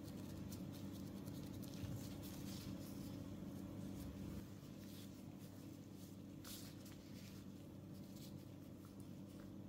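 Faint rustling and light ticks of disposable plastic gloves folding and pressing raw dough on a silicone baking mat, busiest in the first few seconds, over a steady low hum.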